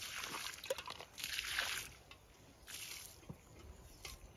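Water poured from a metal bucket into a hollow in a heap of gravel and sand for hand-mixed concrete, splashing in a few short pours.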